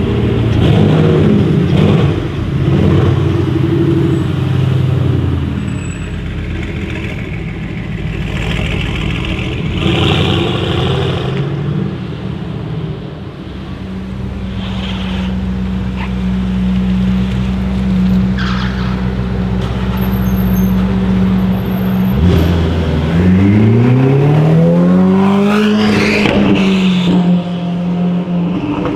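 Sports car engines: a car pulls away in the first few seconds. Later an engine idles steadily, then about three-quarters of the way through it is revved up over a few seconds and drops back to idle.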